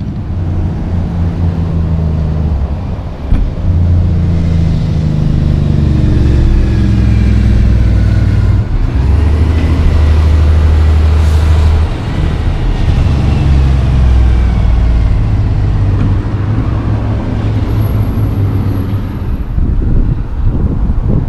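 Heavy diesel semi-truck accelerating past, its engine note holding, then dropping and climbing again as it shifts up through the gears, with a brief knock about three seconds in.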